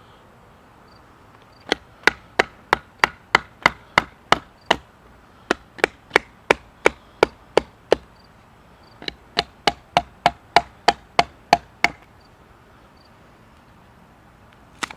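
A wooden baton knocking the spine of a serrated pocket knife, driving the blade down through a stick to split it: three runs of quick, sharp wooden strikes, about three a second, then one last knock near the end.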